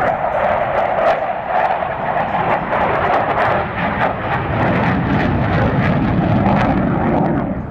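Aircraft engines running loudly as a plane flies over, the sound shifting lower in pitch after about five seconds.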